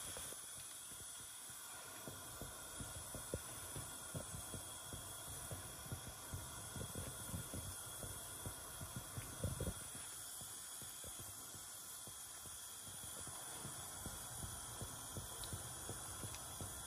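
Spring rolls frying in hot oil in a pan: faint, irregular crackling and popping over a low steady hiss, with one brief louder knock about halfway through.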